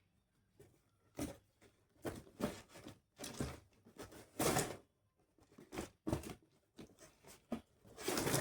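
A cardboard toy box and its packaging being opened by hand: irregular rustling, scraping and tearing noises in short bursts, the loudest about four and a half seconds in and near the end.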